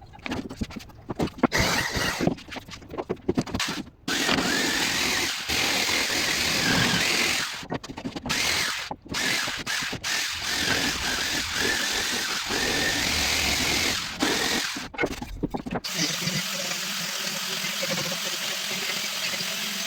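Power tools working wood, heard as a run of short clips that start and stop abruptly. About three-quarters of the way in it gives way to a steadier motor sound with a low hum.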